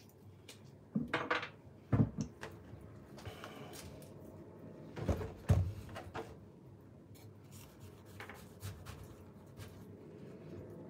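Banpeiyu pomelo being pulled apart by hand, with soft rubbing of peel and segment membrane. A few light knocks come about one, two and five seconds in.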